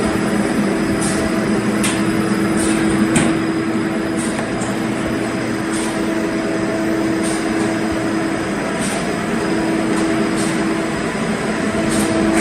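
DRC-75 cereal bar cutting machine running: a steady mechanical hum with a clear drone, and light clicks about once a second.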